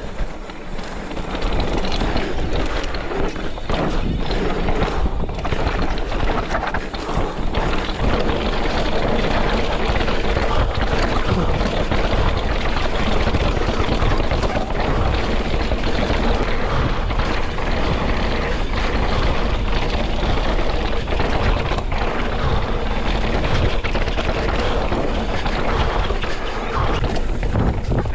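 Wind buffeting a mountain-bike camera's microphone over the roll of knobby tyres on dirt and sandstone, with frequent knocks and rattles from a Scott Ransom full-suspension mountain bike riding down a rough trail. It fades up over the first second or two and then stays loud and steady.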